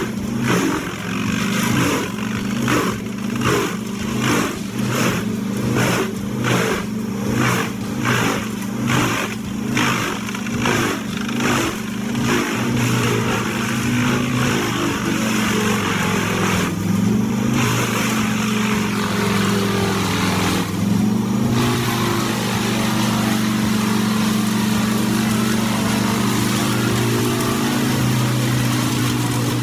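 Vermeer BC2100XL drum brush chipper running hard as it chews through gum tree wood. The engine drone pulses about one and a half times a second for the first dozen seconds, then runs steady, dipping briefly in pitch twice in the second half.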